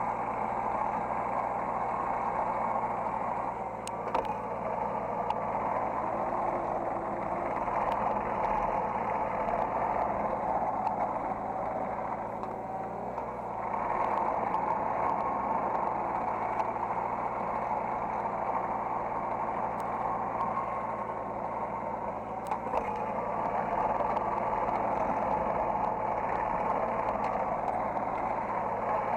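Hydraulic excavator's engine and hydraulics running steadily, heard from the operator's seat, swelling louder and easing off every several seconds, with a few faint clicks.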